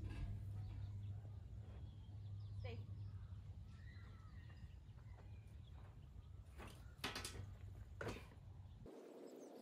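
Quiet outdoor ambience: a steady low hum that cuts off near the end, with faint bird chirps. Two short knocks come about seven and eight seconds in, as a folding camp chair takes a person's weight.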